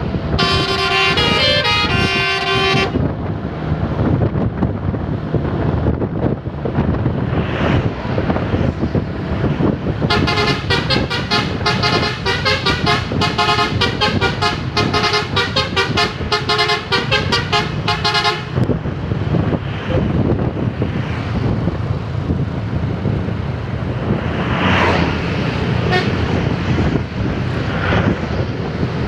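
Bus telolet horn (Basuri type) playing its multi-note melody: a short phrase of about two and a half seconds near the start, then a longer run of about eight seconds of quickly alternating notes in the middle. Steady vehicle running noise continues underneath.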